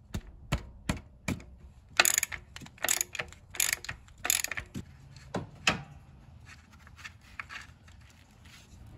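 Socket ratchet clicking in short repeated strokes as it unscrews an old PCV valve with a 22 mm deep socket, the busiest clattering in the middle, then fainter metal clicks near the end.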